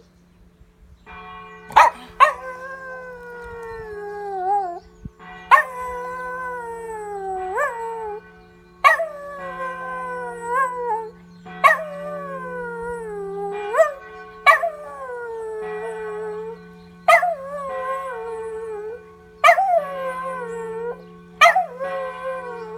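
Lhasa Apso dog howling along with ringing church bells: about eight long howls, each starting sharply high, sliding down in pitch and flicking up at the end, over the steady ringing of the bells.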